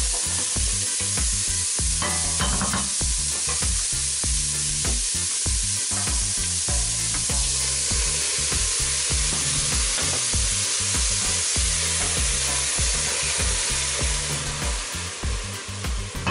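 Onions, garlic and red pepper sizzling in hot oil in a stainless steel pot, stirred with a spoon.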